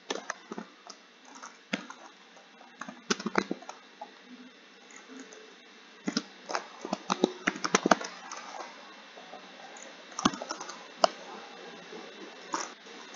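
Typing on a computer keyboard: short runs of key clicks with pauses between them, the busiest run in the middle.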